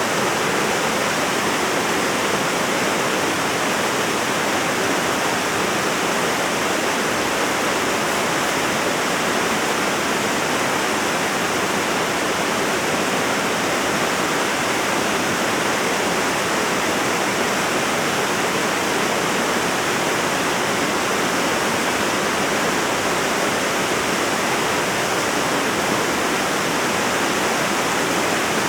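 Creek waterfall, 30 to 40 feet high, cascading into a pool: a steady, unbroken rush of falling water.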